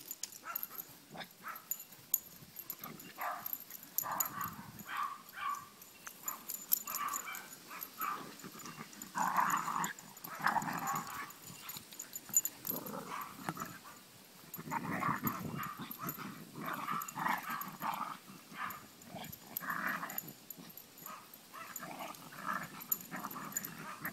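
Small Chihuahuas growling and yipping in short, irregular bursts as they play-fight on the grass.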